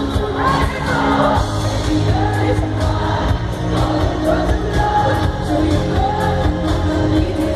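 Live pop song played loud through an arena PA: a woman singing lead over strong bass, with the crowd singing along.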